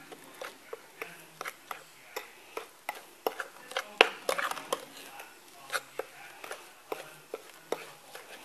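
Metal spoon stirring a stiff crumb mixture in a glass bowl: irregular clinks and scrapes of metal against glass, the sharpest clink about four seconds in.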